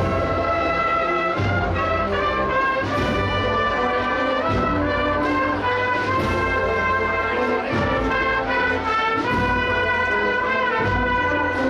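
Brass band playing a Holy Week processional march, with trumpets and trombones holding sustained melodic notes and a few sharp crashes every few seconds.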